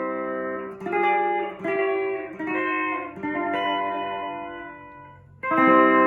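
Flight Centurion electric tenor ukulele with steel strings, played through an amplifier with a light delay effect. A series of ringing chords changes about once a second, the last one fades away, then a loud strummed chord comes in near the end.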